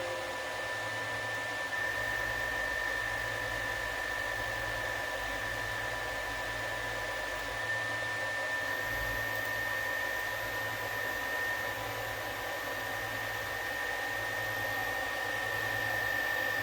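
Steady machine whir with a constant high whine and a low hum underneath: a repaired Panasonic servo drive running under test, its cooling fan and power stage humming steadily.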